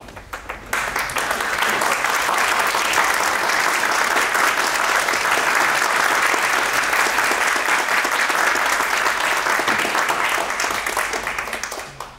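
Audience applauding: a few scattered claps, then full steady applause from about a second in that dies away near the end.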